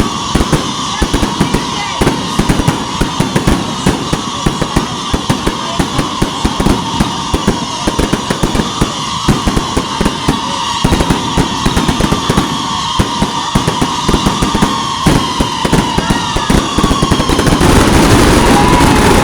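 Fireworks going off in a dense, rapid run of cracks and pops, many a second, with a thin whistling tone over them. Near the end the sound swells into a louder, even rush of noise.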